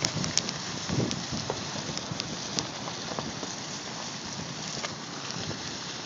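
Steady wind noise buffeting the microphone, with scattered crunching footsteps on gravel and broken asphalt.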